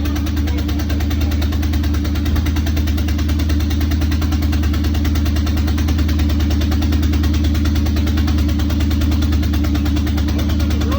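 Corvette engine idling steadily with a rapid, even pulsing. The pulsing is the sound of major exhaust leaks.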